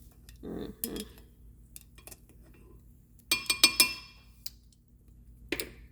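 Kitchenware clinking and knocking: a quick run of about five sharp, ringing clinks of glass or metal a little over three seconds in, with softer knocks before and after.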